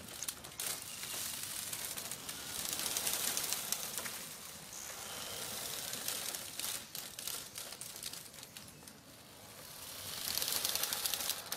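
Ships' mooring ropes creaking against a dock, with a hiss that swells and fades several times and scattered sharp clicks.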